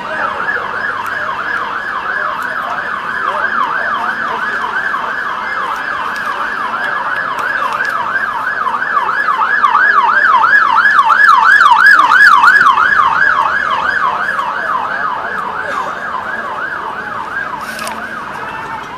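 Emergency vehicle siren in a fast up-and-down yelp, about three sweeps a second, growing louder toward the middle and fading again as the vehicle passes.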